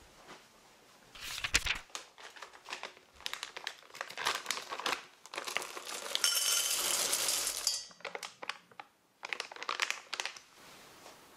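Plastic bag crinkling as it is handled. About six seconds in comes a continuous rush of white chocolate wafers pouring from the bag into a stainless steel pot, followed by a few more crinkles of the bag.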